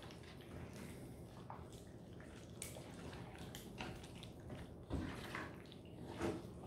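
Faint, irregular wet squishing of gloved hands massaging a green herb marinade into raw rabbit pieces, with a couple of slightly louder squelches about five and six seconds in.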